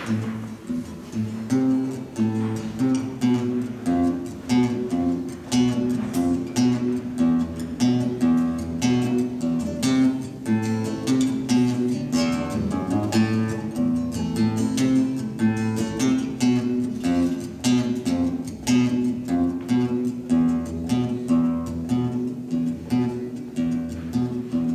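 Classical guitar playing an instrumental introduction, picked and strummed chords in a steady rhythm.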